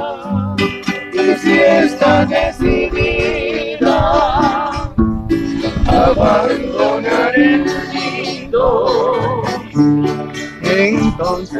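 Several acoustic guitars played together, strummed chords under a plucked melody, with a man's voice singing in places.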